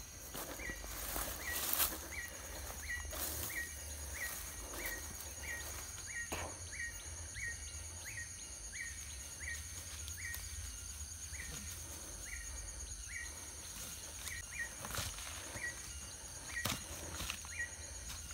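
Outdoor dusk ambience: a steady high-pitched insect drone, with a short chirping call repeated about twice a second throughout and a few faint rustling clicks.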